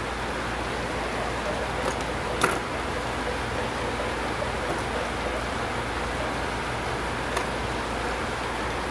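Steady hum and hiss of a workroom's background noise, with a few light clicks and taps as fabric strips are handled on the sewing table.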